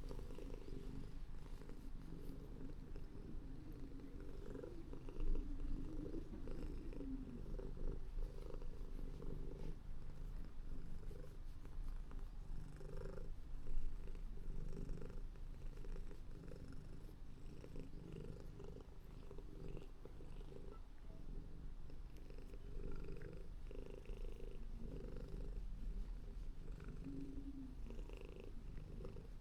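Calico cat purring steadily, a fast continuous low rumble, as a contented cat does; two brief louder bumps about five and fourteen seconds in.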